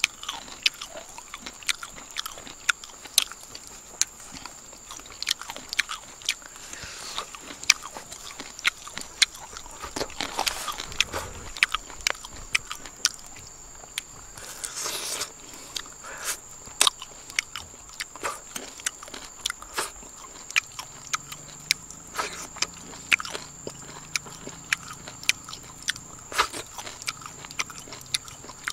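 Close-up biting and chewing of roasted palm weevil grubs eaten off a bamboo skewer: many irregular mouth clicks and crunches.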